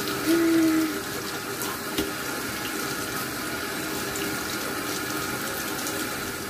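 Steady rush of running water, with a brief low hum about half a second in.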